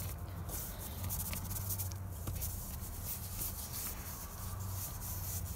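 Faint rustling and small ticks of a needle and silk thread being worked through linen fabric stretched in an embroidery hoop, over a steady low hum.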